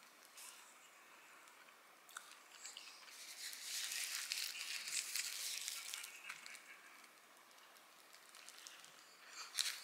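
Wrapper on a mandarin fruit sandwich crinkling as it is handled and peeled back, loudest in the middle, with a brief burst of crackles near the end.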